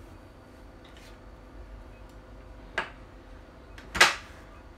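Sharp clicks of a hand tool working on a replica gun: a faint tick about a second in, a clear click a little under three seconds in, and the loudest click about four seconds in.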